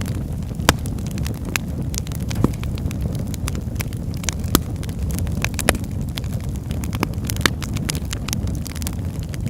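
Campfire crackling: sharp pops and snaps at irregular intervals over a steady low rumble of burning.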